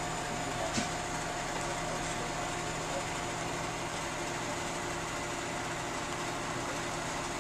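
Steady mechanical hum inside a VIA Rail passenger car, with a few constant tones in it. There is one short click about a second in.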